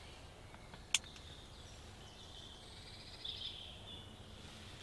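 A single sharp crack about a second in, the shot of a silenced Air Arms S410 PCP air rifle, over quiet woodland; faint bird calls follow from about two and a half seconds in.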